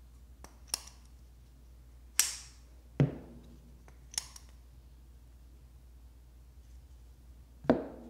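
Sharp clicks and snaps of a CJRB Pyrite folding knife's button-lock blade being swung open and shut, several over the first few seconds, the loudest a little after two and three seconds in. Near the end comes a heavier knock as the knife is set down on a hard surface.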